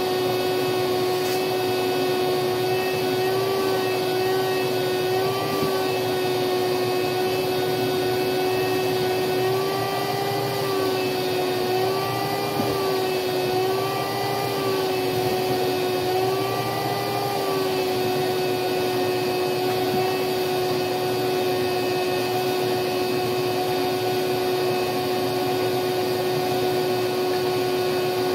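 Vacuum cleaner running steadily while its hose sucks dirt and old burlap out of a seat's coil springs. Its whine dips and wavers in pitch several times in the middle, then settles.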